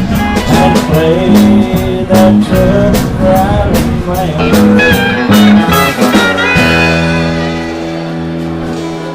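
Live country band playing the closing bars of the song, guitar lead over bass and drums, then landing on a final chord about six and a half seconds in that is held and slowly fades.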